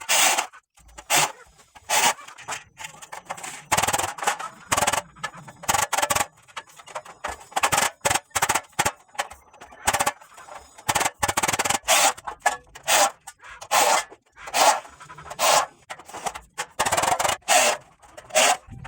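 Metalwork on galvanized steel framing: an irregular run of short, sharp knocks and scraping strokes, about one or two a second.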